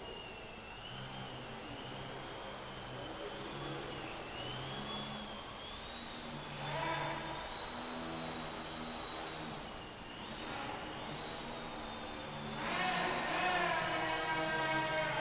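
Electric motor and propeller of an indoor radio-controlled aerobatic foam plane whining, the pitch wandering up and down with the throttle. It surges louder about seven seconds in and again from about thirteen seconds in, as the pilot powers up.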